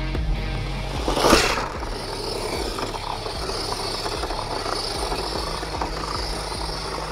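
1:10-scale Wing 2 Super Speed 7 RC drift car with a brushless motor, driving, its electric drivetrain running steadily. There is a loud surge about a second in.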